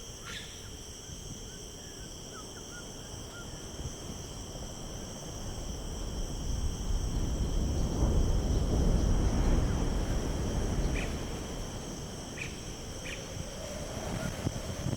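Natural ambience with a steady, high insect chorus throughout and a few short chirps. A low rumble swells about six seconds in and fades again about five seconds later.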